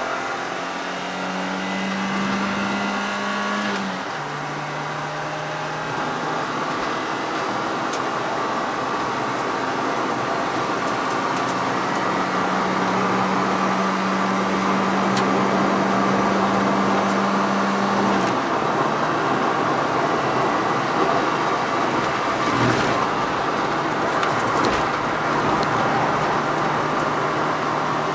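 Car engine and tyre and wind noise heard from inside the cabin while the car is driven around a race circuit. The steady engine note twice steps down to a lower pitch, about four seconds in and again near the middle, over a constant road rush that builds slightly.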